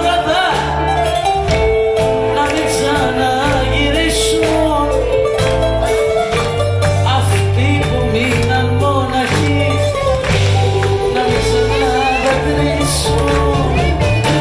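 Live band playing an upbeat Greek popular song, with drums, bass and keyboards under a wavering melody line.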